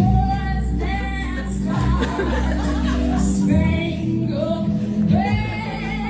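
A pop song playing, with a sung vocal over steady bass notes.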